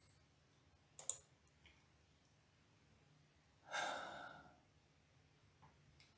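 Near silence, broken by two quick mouse clicks about a second in and a person's short breathy exhale, like a sigh, near four seconds.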